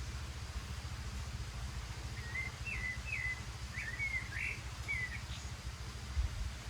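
A small bird chirping in a quick run of about six short calls, over a low steady rumble. A couple of low thumps come near the end.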